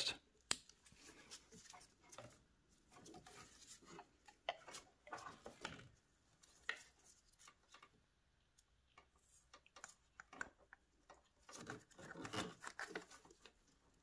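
Mostly near silence, with scattered faint plastic clicks and rustles of gloved hands fitting an ignition coil and its plug connector into a Mercedes SLK 350's V6 with the engine off.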